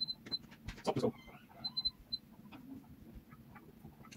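Short, high electronic beeps from an electric stove's control panel as its buttons are pressed, a few at the start and a cluster of three about two seconds in, with light clicks of fingers on the controls. Between them, about a second in, comes a brief louder mutter. The cooking zone shows no light, so the controls are being pressed again and again to get it on.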